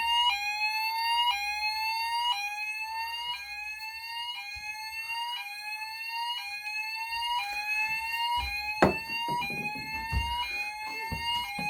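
Fire alarm system sounders in alarm after a smoke detector test set them off: an electronic tone sweeping upward, repeating about once a second, with other sweeps overlapping out of step. A sharp knock comes about nine seconds in.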